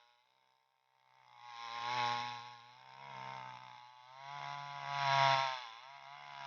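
Green Garden chainsaw with a 22-inch bar running, its engine speed rising and falling: it swells loudest about two seconds in and again near five seconds, with quieter stretches between, and almost fades out about half a second in.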